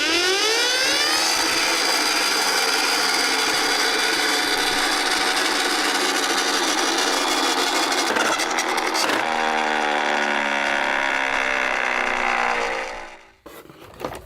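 Miniature toy cars rolling down a slope: a steady whirring rattle that rises in pitch as it gets going, shifts about nine seconds in, and fades out near the end.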